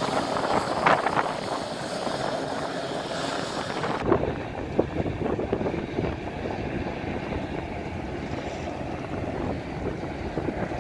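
Wind buffeting the microphone on an open seaside pier, with a low rumble from an approaching Island Line Class 483 train, a former London Underground 1938 tube stock unit. About four seconds in, the high hiss drops away and the low rumble grows.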